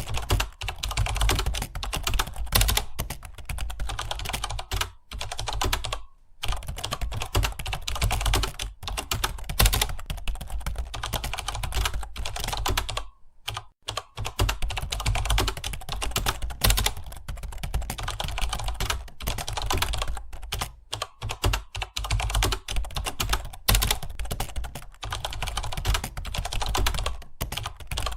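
Fast, continuous typing on a computer keyboard, a dense run of key clicks with two brief pauses, around 6 seconds in and around 13 seconds in.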